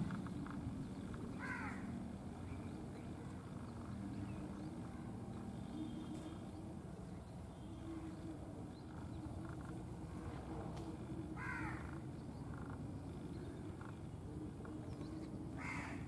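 A bird giving three short, harsh, caw-like calls several seconds apart, over a steady low background rumble.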